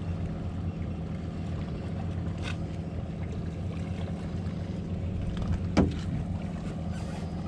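Boat engine idling with a steady low hum, and a single short knock near the end.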